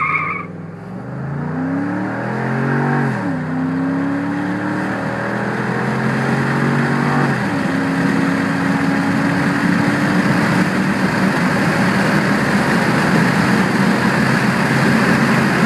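2011 Ford F-150's 5.0-litre V8 at wide-open throttle from a standstill, heard inside the cab. The engine note climbs and drops at an automatic upshift about three seconds in and again about seven seconds in. Wind and road noise then build steadily louder as speed climbs.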